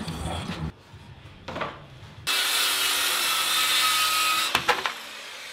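A power tool working the MDF bending form: about two seconds of steady machine noise that starts abruptly a little past two seconds in and cuts off sharply. Brief knocks and rubbing on the wood come before it, and a couple of clicks after.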